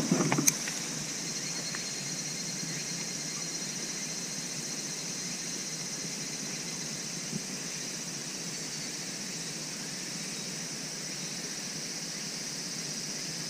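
Steady high-pitched drone of a summer insect chorus, with a single sharp click about half a second in.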